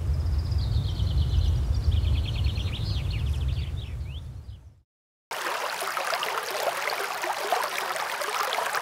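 Outdoor ambience: a low rumble with a small bird singing quick high chirps and trills, fading out about halfway. After a brief silence, a shallow rocky creek rushes steadily.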